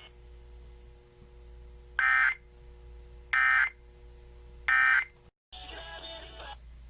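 Emergency Alert System end-of-message signal: three identical short bursts of shrill two-tone SAME digital data, about a second and a half apart. After a brief dropout, a longer, harsher burst of similar data tones follows.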